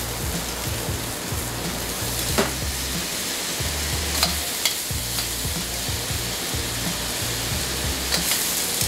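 Breaded chicken and aromatics sizzling steadily in hot oil in a wok as they are stir-fried, with a few sharp clicks of the stirring tool against the wok.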